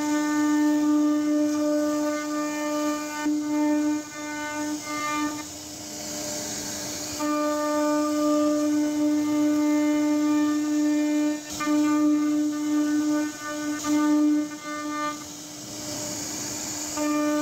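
CNC router spindle carving a wooden door panel: a steady, unchanging pitched whine that cuts out twice for about two seconds and stutters briefly a few times in between.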